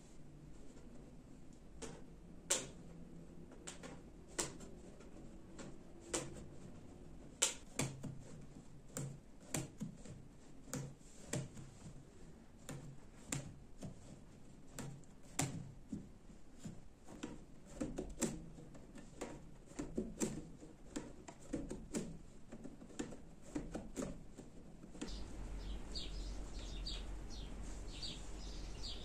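Hand-knotting a carpet on an upright loom: irregular sharp clicks and taps of the knotting knife and yarn against the taut warp threads, one or two a second. A few seconds before the end this gives way to a steady low hum with birds chirping.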